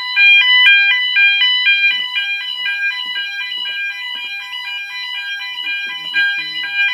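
Fire alarm sounder going off during a system test: a loud electronic two-tone warble that switches rapidly back and forth between a lower and a higher pitch.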